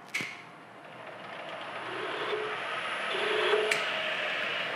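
Milling machine spindle running while a single-flute countersink cuts a chamfer into a drilled hole in a metal block. A sharp click comes right at the start, and the cutting noise builds to its loudest about three and a half seconds in.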